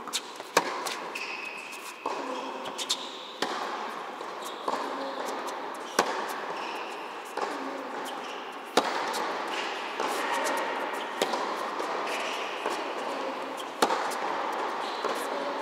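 Tennis balls struck by rackets and bouncing on an indoor court during a rally: sharp pops a second or two apart in a large hall.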